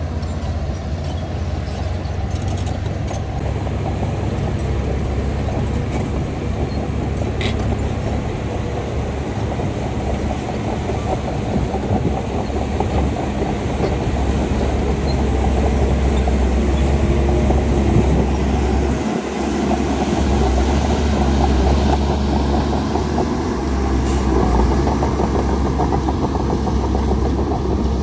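Heavy diesel earthmoving machinery running steadily under work. It grows louder about halfway through and dips briefly about two-thirds of the way in.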